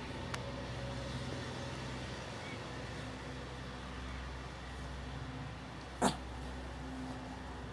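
Shih Tzu chewing and mouthing a plush tiger toy, over a steady low hum, with one short sharp sound about six seconds in.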